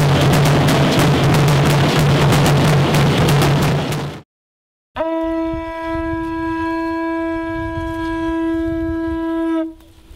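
Loud drum-heavy music that cuts off about four seconds in; after a brief silence, a conch shell trumpet is blown in one long steady note for almost five seconds.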